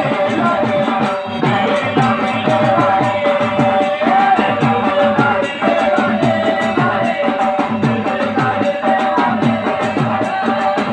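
Gondi dandar folk music: drums beat a fast, even rhythm of about three strokes a second under a held, wavering melody line.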